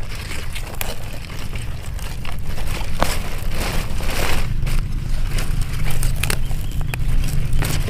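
Hands scraping dry, crumbly soil and rustling radish leaves while digging out and pulling up a white radish, with scattered small crackles and clicks of soil and roots. A steady low rumble runs underneath.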